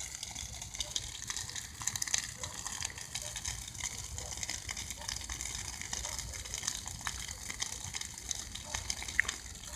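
Gasoline-fed bonfire burning steadily: a faint low rushing of flames with scattered small crackles.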